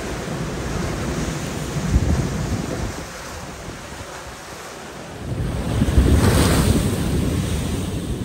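Storm waves crashing against a seawall, with strong wind buffeting the microphone. A big wave breaks about five seconds in, the loudest moment.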